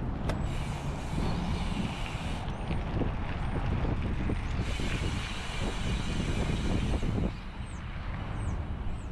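Road traffic running steadily, with the fast, high buzz of an Industry Nine Hydra rear hub freewheeling as the bike coasts, heard in two stretches. The hub buzz is fairly low under the traffic.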